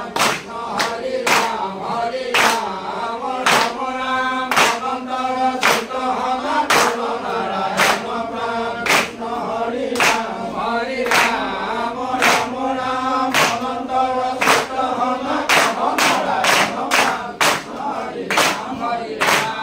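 Assamese naam-prasanga devotional chanting: a group of voices singing a hymn together, kept in time by hand-clapping at about two claps a second, the claps coming a little quicker near the end.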